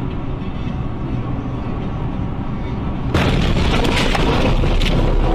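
Steady vehicle rumble of engine and road noise picked up by a car's dashcam. About three seconds in it jumps abruptly to a louder, harsher rush of wind and road noise with crackles.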